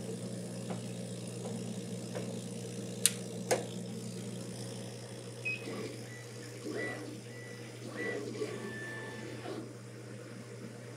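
Monport Reno Pro CO2 laser engraver running a job: steady hum of its exhaust fan and built-in air-assist pump, with two sharp clicks about three seconds in and short high tones and whirring as the laser head moves over the board in the second half.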